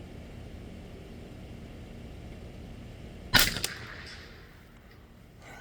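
A single .22 LR rifle shot from a Derya TM22 about three and a half seconds in, with a short echo trailing off after it.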